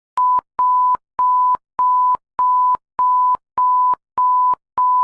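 Electronic emergency alert tone: a single steady mid-pitched beep repeated about nine times, a little under two beeps a second, starting suddenly out of silence.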